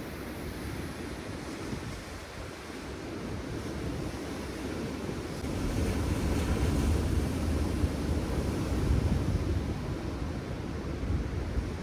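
Waves washing on a rocky shore, with wind rumbling on the microphone. The rumble grows louder about halfway through.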